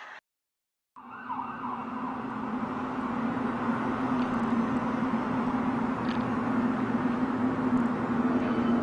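An amateur recording of one of the 2012 'strange sounds' begins after a brief cut to silence. It is a steady droning hum on one low tone under a rushing noise, growing slowly louder.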